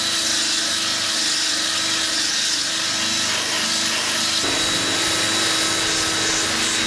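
Handheld electric drill spinning a wire brush, run continuously against a truck headliner board to scrub off the old foam backing. A steady whir with a constant hum.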